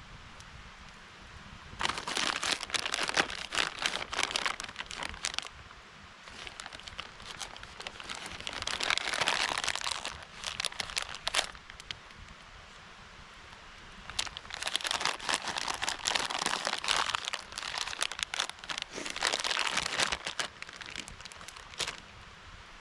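Plastic packaging crinkling and crackling as it is handled, in four bouts of a few seconds each.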